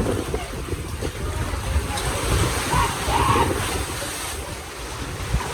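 Ocean waves washing on the shore, with wind buffeting the microphone in gusts.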